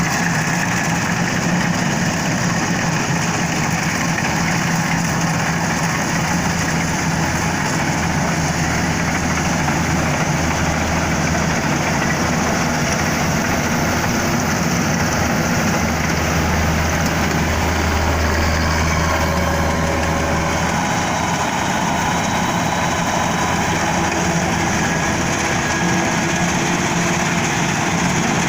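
Rice combine harvester running steadily under load, its engine and machinery droning, with a deeper low hum through the middle stretch.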